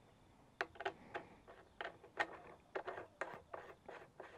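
An irregular run of small, sharp clicks and taps: stainless steel studs being handled and run in finger tight by hand into a snorkel body.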